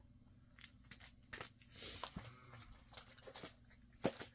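Clear plastic comic-book bags and paper packing crinkling and rustling as comics are handled, in short intermittent rustles and clicks with a longer rustle about two seconds in.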